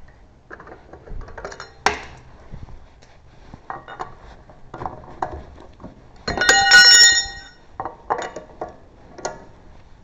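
Metal clinks and knocks of tools and wheel parts being handled, with one louder ringing metallic clang lasting about a second a little after six seconds in.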